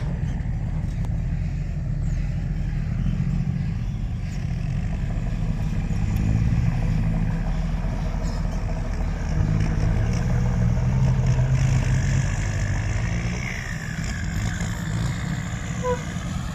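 Kubota M6240 tractor's diesel engine running steadily, its note swelling louder a couple of times.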